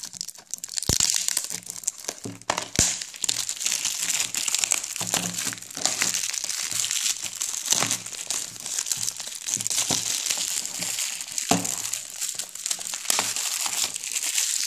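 Plastic shrink-wrap being peeled and crumpled off a DVD case: continuous crinkling with a few sharp clicks.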